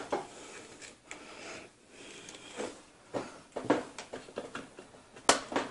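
Small knocks and handling noise as a DDR3 memory module is worked into a motherboard memory slot, then a sharp click about five seconds in as the module seats and the slot latch snaps shut.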